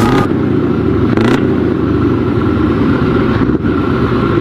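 Truck engine running loud and revving, with a short burst of noise about a second in.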